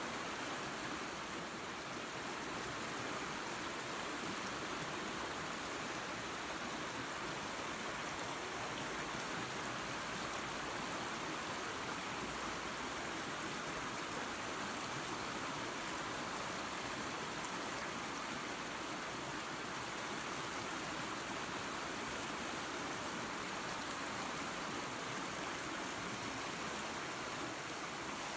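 Waterfall and creek: a steady rush of running water, even and unbroken.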